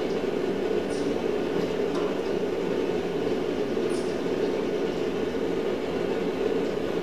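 Gas forge burner running with a steady, unbroken rushing noise.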